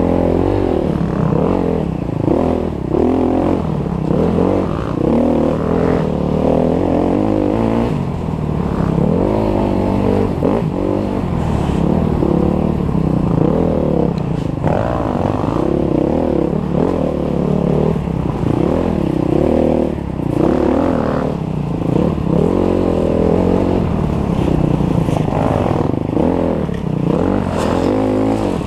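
Enduro dirt bike engine revving up and down over and over as the rider works the throttle through the gears, the pitch rising and falling every second or two.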